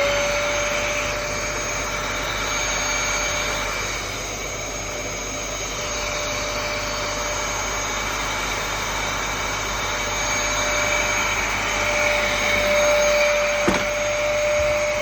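Vacuum cleaner running at full speed: a steady motor whine at a fixed pitch over the rush of air.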